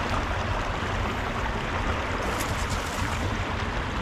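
Steady rushing of water flowing out of a pipe outlet into a river.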